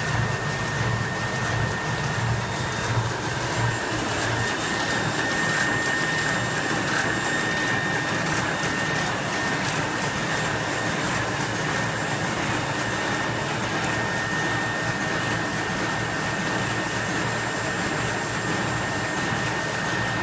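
Heidelberg GTO 52 two-colour sheet-fed offset printing press running steadily: a continuous mechanical clatter with a steady high tone.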